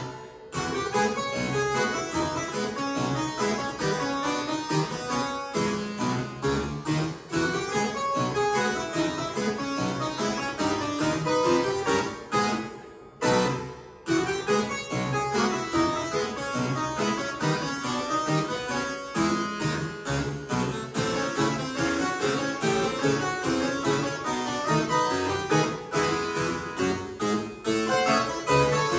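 Harpsichord playing a ragtime piece solo, a steady stream of quick plucked notes with a brief break about thirteen seconds in.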